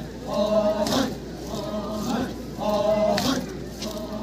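A group of Chakhesang Naga men chanting in unison for a traditional folk dance. A held chanted phrase comes round about every two seconds, with short sharp shouts in between.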